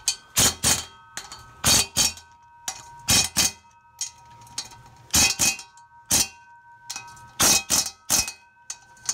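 Impact driver on its lowest setting snugging oil pan bolts in short trigger bursts. Sharp metallic clacks come two or three at a time, about every second and a half, with a ringing metal tone hanging between them.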